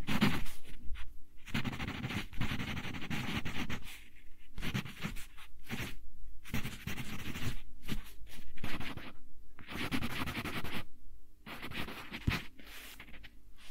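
Wooden pencil writing cursive on lined paper: scratchy strokes in bursts of a second or so, with short pauses between them.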